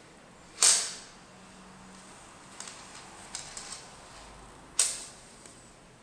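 5 mm neodymium magnet balls snapping together with two sharp clicks about four seconds apart, the first the loudest, and a few faint ticks between them, as chains of balls join into a ring.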